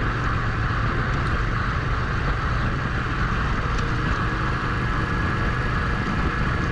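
Adventure motorcycle running steadily on a gravel road, its engine a low drone under a constant rush of wind and tyre noise.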